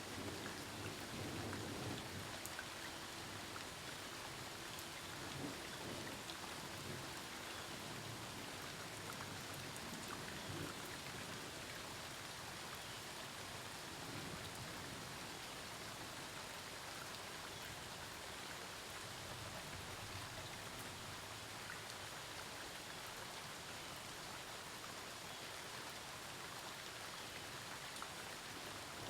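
Steady rain falling during a thunderstorm, an even hiss of drops, with a low rumble of thunder in the first two seconds.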